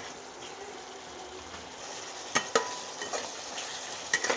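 Onion-tomato masala sizzling in a pan, with a spoon scraping and knocking against the pan a few times from about halfway in.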